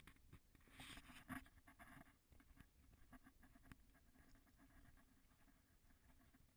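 Near silence with faint irregular ticks and a soft patter, slightly louder about a second in.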